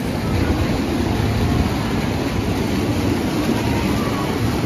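Hot tub jets churning the water: a steady, loud rush of bubbling water, heaviest in the low end.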